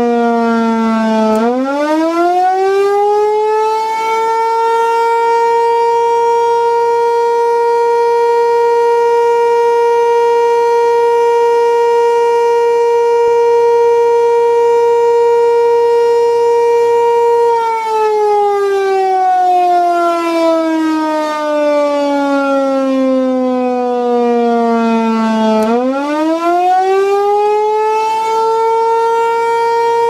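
American Signal Corporation T-128 tornado siren sounding a wail. The pitch sinks low in the first second and winds up to a steady high tone held for about twelve seconds, then slides down over about eight seconds and climbs back up near the end.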